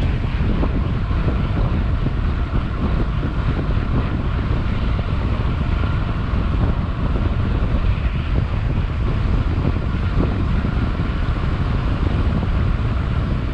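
Wind buffeting the microphone of a handlebar-mounted camera on a moving mountain bike: a loud, steady, deep rumble.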